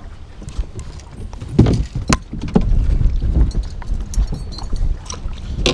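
Wind buffeting the microphone over choppy water on a small fishing boat, with a few sharp knocks and splashes, the loudest about a second and a half in.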